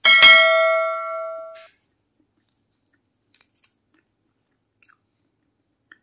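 A notification-bell ding sound effect from a subscribe-button animation: struck once right at the start and ringing out over about a second and a half. A few faint, quiet chewing ticks follow.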